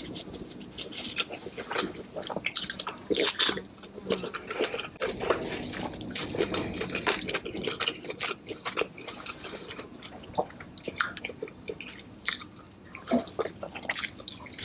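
Close-miked mukbang eating of seafood: wet chewing, biting and smacking, with many irregular sharp clicks and crackles.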